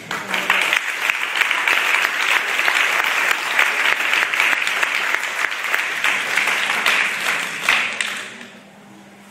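Audience applauding in a gym hall, a dense patter of clapping that dies away about eight seconds in.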